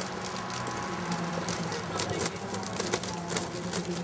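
Mixed outdoor background: distant voices talking over a steady low hum, with scattered small clicks.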